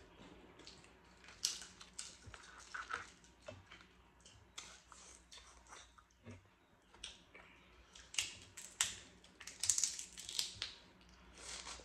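Crab-leg and crawfish shells being cracked and picked apart by hand, with chewing close to the microphone. Irregular sharp cracks and clicks, coming thickest near the end.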